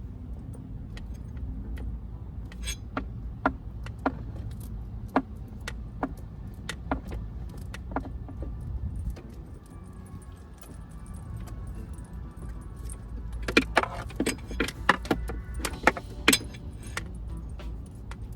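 Scissors snipping through a thick 4-gauge battery cable, a sharp click with each cut, roughly one every half second to second for several seconds, then a quicker cluster of clicks later on. A low steady rumble runs underneath.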